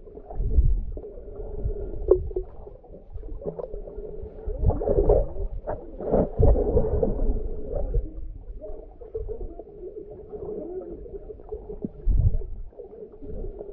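Muffled underwater sound picked up by a submerged camera: swirling water with a steady hum and several dull thumps.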